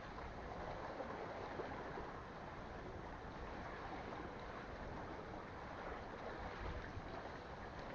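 Steady wash of wind and sea water, an even hiss with no distinct events.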